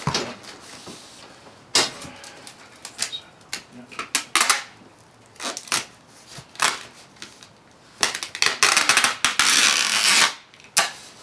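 Packing tape being pulled off its roll to seal a cardboard box: scattered short rips and clicks, then a long ripping pull about eight seconds in that lasts some two seconds.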